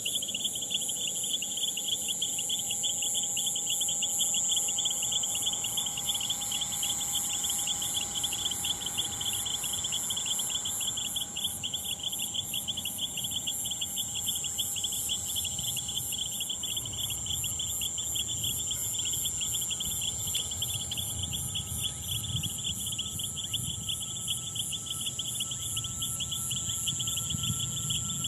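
Insects, likely crickets, chirping steadily in a fast, even pulsing rhythm at a high pitch. In the second half a faint low rumble builds, with a thin whine slowly rising in pitch.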